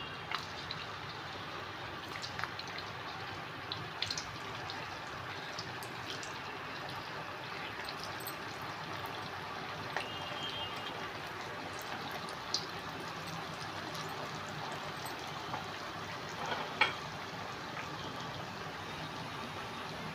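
Leftover-rice cutlets deep-frying in hot oil: a steady sizzle with scattered crackles and pops, one louder pop near the end.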